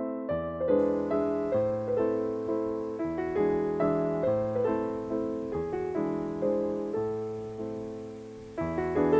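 Background piano music: a gentle melody of struck notes and chords, each one sounding and fading away.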